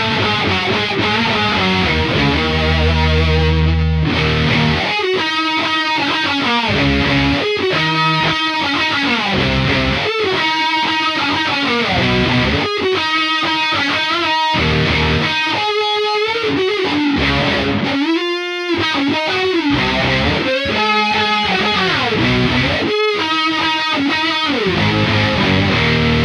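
Electric bass played through octave and distortion effect pedals, giving a thick, distorted riff that sounds like guitar and bass at once. The notes change constantly, with some slides between them.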